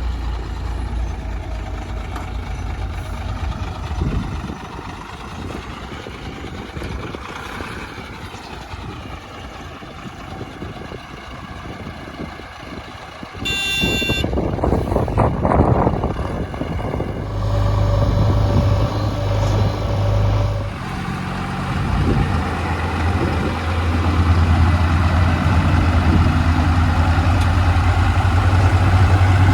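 Heavy diesel engines of a backhoe loader and tipper truck running. About halfway through comes a short high tone like a horn or beeper, then a burst of noise, after which the engine runs louder and steadier.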